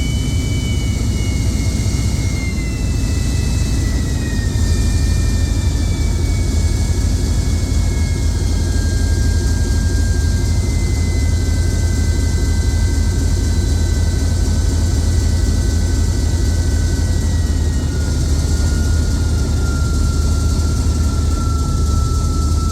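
Two Napier turbochargers on a Class 37's English Electric 12CSVT diesel whistling over the engine's heavy rumble, heard inside the locomotive. The two whistles slowly fall in pitch together as the turbos run down, with the engine under about half power.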